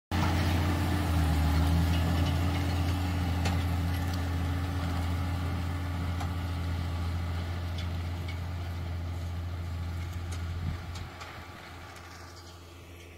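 John Deere 6190R tractor's six-cylinder diesel engine running steadily under load as it pulls a Horsch Joker disc harrow through stubble. The engine fades as the tractor draws away near the end.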